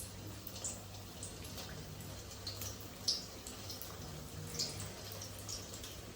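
Chicken egg rolls frying in hot oil in a kadai: faint, irregular crackles and pops of the oil, over a low steady hum.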